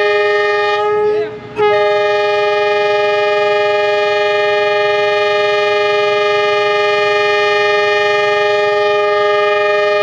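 A train's air horn sounding the departure signal as a steady chord: a blast that breaks off about a second in, then one long unbroken blast.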